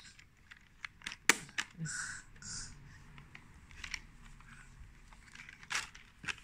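Scattered plastic clicks and light handling noise from hands working the underside of a toy radio-controlled car, with one sharp click about a second in the loudest.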